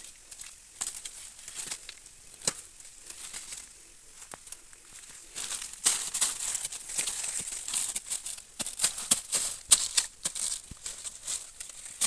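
Dry bamboo leaves and stems crackling and rustling as they are handled and pushed aside. The snaps and crackles get much busier and louder about halfway through.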